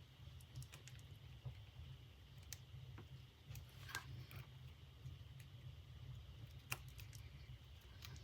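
Near silence over a low steady hum, with a few faint scattered clicks and small handling noises from fabric being worked into a metal purse clasp frame.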